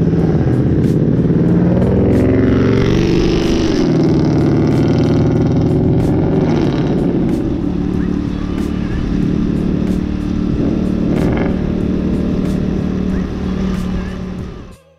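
Motorcycle engine running under way, revving up and dropping back about two to four seconds in, then holding a steady note. It fades out near the end.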